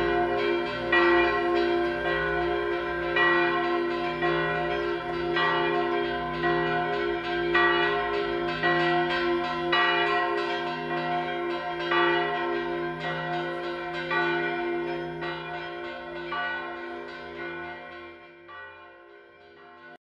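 Church bells ringing from the village bell tower, a fresh stroke about once a second over long ringing tones, fading away over the last few seconds.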